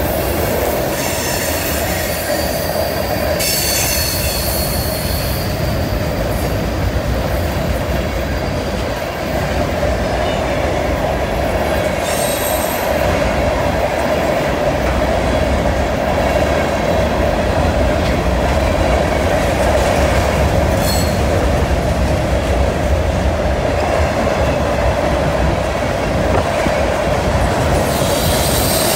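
Freight cars of a Canadian National mixed freight train rolling past on a curve: a steady rumble and grinding of steel wheels on rail. High-pitched wheel squeal comes and goes, strongest in the first few seconds and again briefly near the middle.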